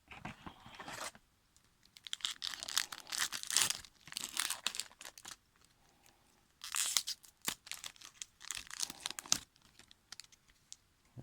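The wrapper of a hockey card pack being torn open and crinkled: three bouts of papery rustling and crackling, the longest in the middle.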